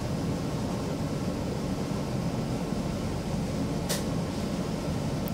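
Cabin sound of a Stockholm Metro C20 train running through a tunnel: a steady low rumble of wheels and traction equipment. A brief sharp high-pitched sound cuts in about four seconds in.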